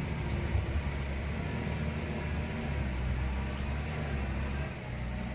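Steady low rumble of a passing motor vehicle, easing off a little near the end.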